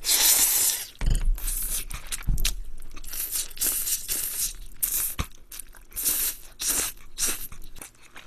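Close-miked slurping of pasta noodles: one long slurp about the first second, then a run of shorter slurps with wet chewing.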